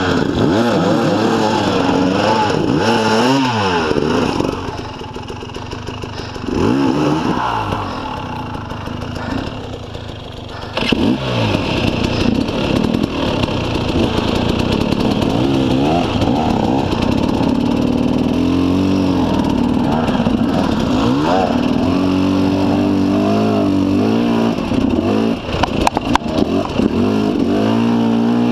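Two-stroke KTM 300 enduro dirt bike engines revving up and down. The sound drops back for several seconds, then an engine picks up sharply about eleven seconds in and runs on with changing revs as the bike rides the trail.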